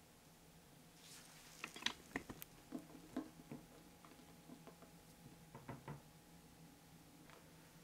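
Light clicks and taps of a utensil against a glass mixing bowl, clustered from about one to three and a half seconds in and loudest near two seconds, with a few fainter taps near six seconds as a spatula stirs stiff meringue to even out its texture before folding.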